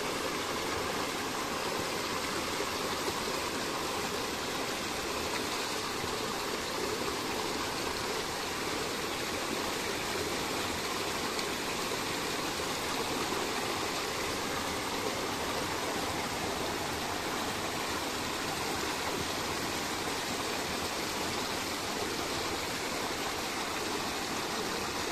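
River water flowing: a steady, even rushing of water.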